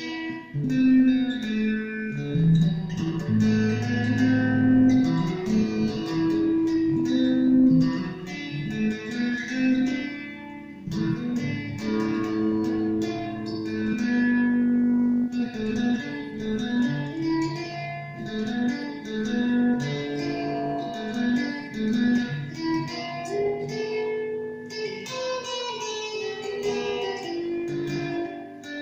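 Revelation RJT60 electric guitar played through a Vox Tonelab modelling processor: a run of changing single notes and chords ringing into one another, with a short gap about eleven seconds in.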